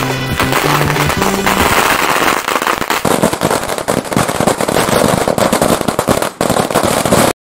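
A long string of small firecrackers going off in a rapid, continuous run of sharp bangs. Music plays under the first two seconds, and the sound cuts off abruptly near the end.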